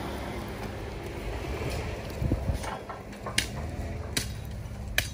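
Jeep engine running at low speed while the vehicle moves along a dirt trail. Sharp clicks or knocks come through from about two seconds in, roughly one a second.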